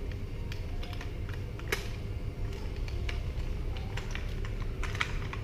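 Irregular light clicks and taps of hard plastic toy RC tank parts being handled and turned over in the hands, one sharper click about two seconds in and a few more near the end, over a steady low rumble.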